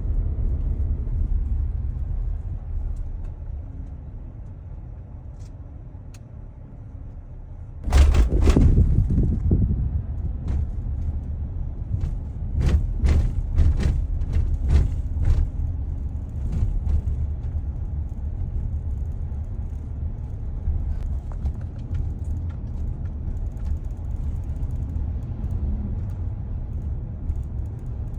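A car driving, with a steady low road rumble that eases off for a few seconds. About eight seconds in comes a sudden loud jolt, followed by a run of sharp knocks over the next several seconds, before the steady rumble returns.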